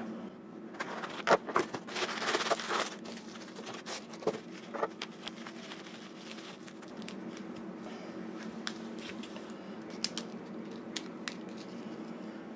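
Cardboard shipping box being opened by hand and packing material rustled and pulled out, with scrapes and sharp clicks. Busiest in the first three seconds, then only scattered light clicks and handling over a faint steady hum.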